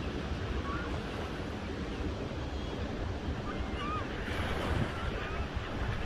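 Ocean surf washing steadily onto a sandy beach, a continuous rushing noise with a low rumble. Faint short bird chirps come now and then, clearest about halfway through.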